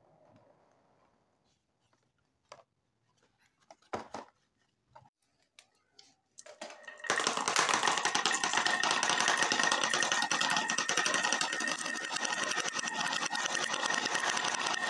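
A stream of dozens of marbles rolling down a wavy grooved wooden track and dropping into a plastic toy dump truck's bed, a dense continuous clatter that starts about seven seconds in. Before that, only a few scattered clicks.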